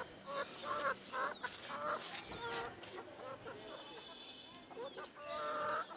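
Domestic hens clucking in a run of short, repeated calls.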